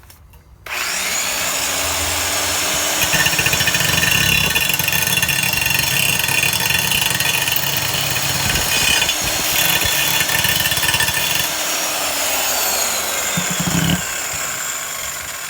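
Black & Decker 5-inch straight grinder, freshly re-greased with one new bearing, switching on with a sudden start about a second in and running at full speed with a steady whine, rougher and louder through the middle. Near the end its pitch falls and the level drops as it winds down.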